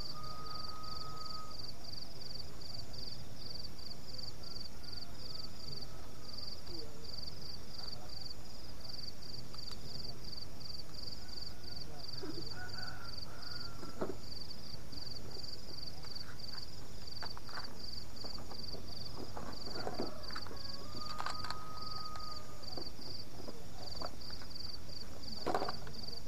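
Insects chirping steadily at night, an even run of high pulses a few times a second. Occasional light clicks and knocks come from gear being handled.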